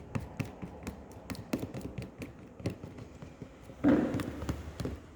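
Slime being stirred in a bowl just after activator drops go in. The utensil taps against the bowl in quick, irregular clicks, and there is one louder, longer sound of about a second, roughly four seconds in.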